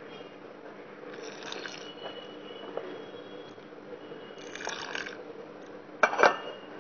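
Hand mixing wet besan (gram flour) batter in a steel bowl: soft squelching and scraping of flour and water in short spells, then a quick pair of sharp knocks a little after six seconds in, the loudest sounds.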